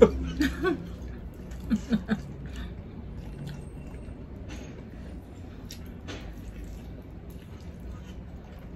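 Close-up eating sounds: faint wet squishing, smacking and light clicks as two people eat saucy pork hock and rice with their hands. There is a brief vocal exclamation at the start and a short murmur about two seconds in.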